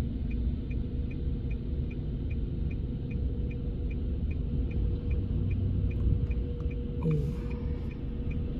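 Car turn-signal indicator clicking steadily, a little more than two clicks a second, inside the car's cabin over the low hum of the idling engine.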